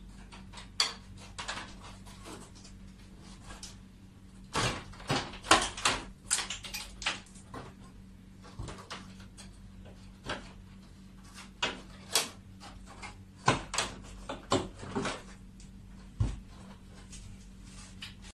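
Plastic front cover of a split-type air conditioner's indoor unit being worked loose by hand: a run of sharp plastic clicks and knocks as its clips let go, busiest from about four and a half to seven and a half seconds in and again around thirteen to fifteen seconds in.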